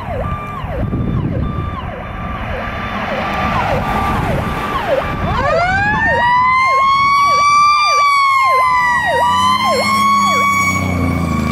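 E-One fire engine's siren cycling in a fast, repeating yelp. About halfway through, a second siren winds up slowly into a high wail, dips briefly and holds, over the rumble of the truck's engine.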